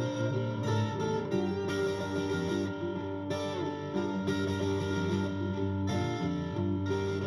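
Guitar music: plucked guitar notes and chords played continuously.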